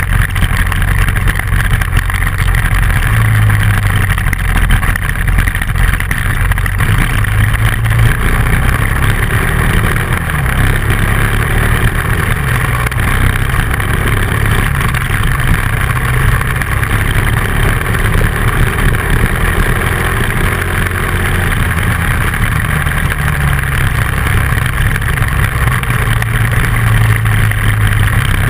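Dual-sport motorcycle engine running at varying throttle, its note rising and falling several times, with a steady rush of wind and road noise over the bike-mounted camera microphone.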